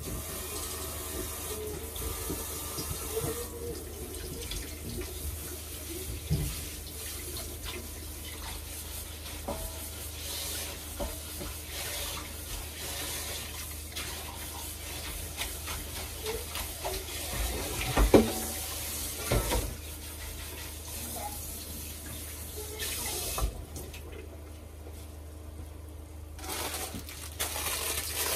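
Kitchen tap running into a sink while bean sprouts are rinsed, with a few light knocks against the sink. The water stops for a few seconds near the end, then runs again.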